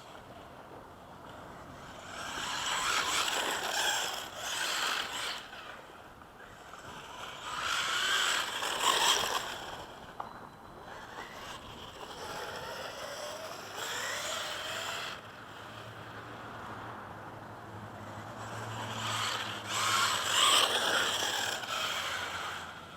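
Electric-converted OFNA LX1 1/8-scale RC buggy driving on dirt, its motor and gear whine rising and falling with the throttle over the rush of tyres on dirt. It passes loudly three times, with quieter running in between. The drivetrain is loud because the buggy still runs its nitro Mod 1 gears.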